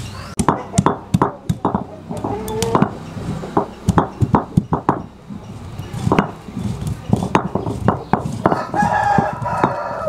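Stone roller pounding and crushing dry spices on a flat stone grinding slab, sharp irregular stone-on-stone knocks about two to three a second. A rooster crows near the end.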